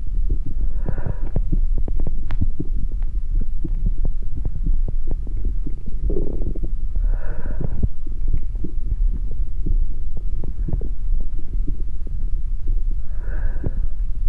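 Amplified heartbeat recording: dense, continuous low thumps of heart sounds over a steady low hum, with three short breathy swells about six seconds apart.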